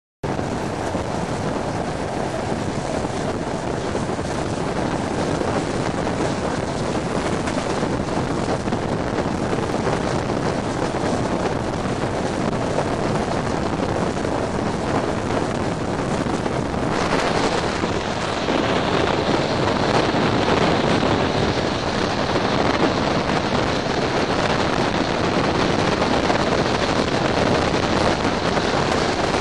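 Wind rushing over a microphone held out of a moving train's window, mixed with the train's steady running noise. About 17 seconds in the sound turns brighter and a little louder.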